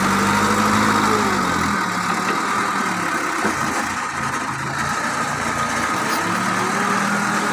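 Backhoe loader's diesel engine running while its front bucket scoops oil palm fruit bunches; the engine speed dips a little under two seconds in and rises again near the end.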